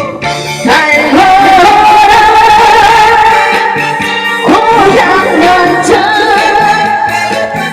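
A woman singing a Korean song with vibrato over an amplified backing track; about a second in she holds one long note for some three seconds, then begins a new phrase.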